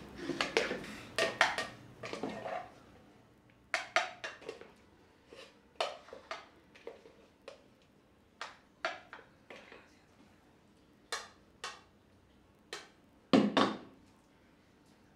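Dishes clinking as food is served from cooking pots onto a plate: a spoon and plate knock and scrape against the pots in short, irregular clinks. A louder knock comes near the end.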